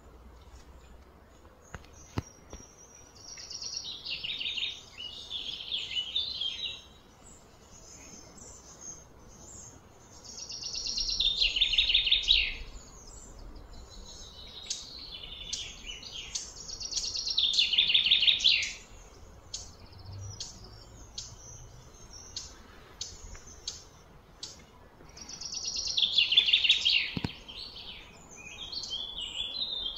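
Outdoor birdsong: loud, fast trilling phrases of two to three seconds, repeated four times, with scattered short high chirps in between.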